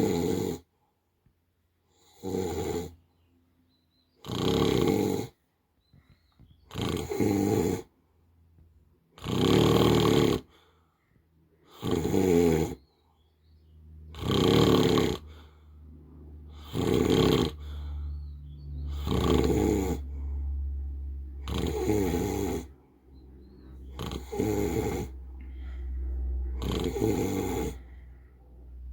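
An elderly man snoring in his sleep: a long snore about every two and a half seconds. A steady low hum joins underneath from about halfway through.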